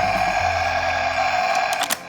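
A toy ambulance's electronic siren holding a steady tone, with a low rumble under it and a few sharp clicks near the end.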